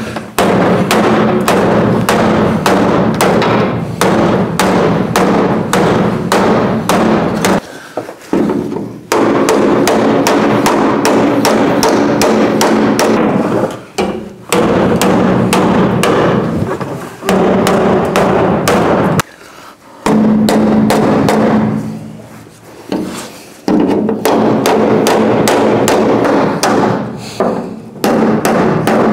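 Rapid hammer blows on the rusty sheet-metal lower edge of a 1970 El Camino's quarter panel and inner wheel well, beating the caved-in metal straight. The metal rings under the blows, which come about four a second in runs with short pauses between.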